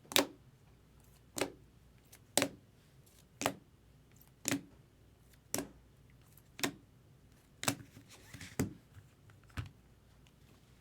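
Hard plastic trading-card cases set down on a table one after another: about ten sharp taps, roughly one a second.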